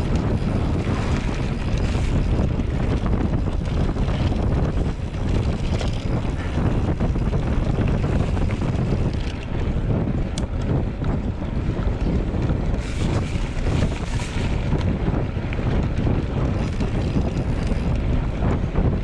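Steady wind noise buffeting the microphone, a dense rumble heaviest in the bass.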